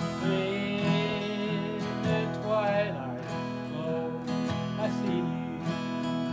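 Acoustic guitar strummed steadily, with a wavering higher melody line carried over the chords for much of the time.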